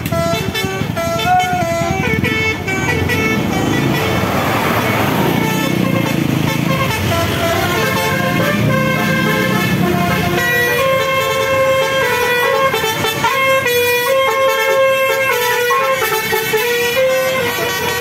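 Tour bus basuri 'telolet' multi-tone horn playing a tune, a run of held notes that jump from pitch to pitch, over the low rumble of bus engines.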